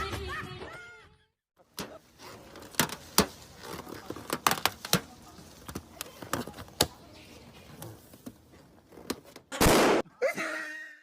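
A series of irregular knocks and thuds at uneven spacing, with a louder burst of noise near the end.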